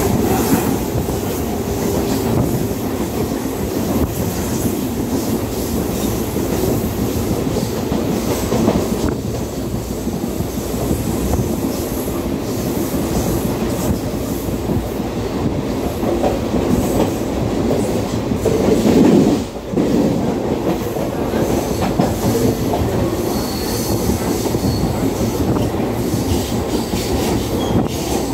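Mumbai suburban local train running at speed, heard from aboard: steel wheels rumbling and clattering over the rail joints. There is a brief louder rush about two-thirds of the way through and a faint high wheel squeal near the end.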